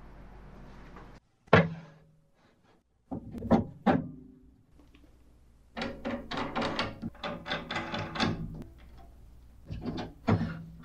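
Birch plywood boards knocking on hard surfaces as they are handled and set down, with a stretch of scraping and clattering as a board is slid into position on a bandsaw's steel table against a fence. The sharp knocks come about a second and a half in, twice around four seconds in, and once near the end.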